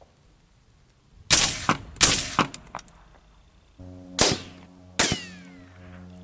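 Rifle shots through a SilencerCo Omega suppressor: a string of sharp, irregularly spaced cracks with short ringing tails, loudest in the first two seconds. A held music chord comes in partway through.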